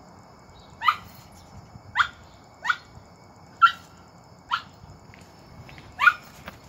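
A dog's short, high-pitched yelps, six in about five seconds, each sweeping sharply up in pitch.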